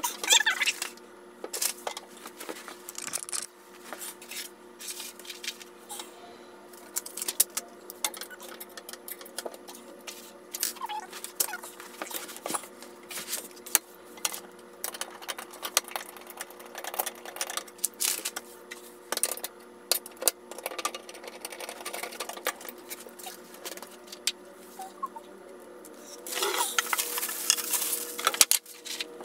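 Scattered small clicks, taps and rattles of metal frame parts and fittings being handled during flat-pack assembly of an IKEA VITTSJÖ laptop table, over a steady faint hum. A stretch of rustling comes about 26 seconds in.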